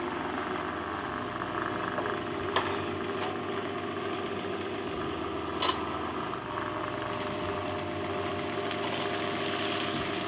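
A pan of vegetable sabzi cooking on a stove: steady sizzling over a low steady hum, with two sharp clicks, one about two and a half seconds in and a louder one near the middle.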